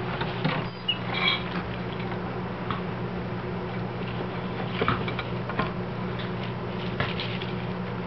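Gerbils scrabbling and rustling in wood-shaving bedding, with scattered small clicks, over a steady low hum.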